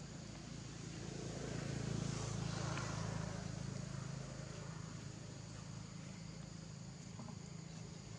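Low hum of a distant motor vehicle that swells about two seconds in and fades slowly, over steady outdoor background noise.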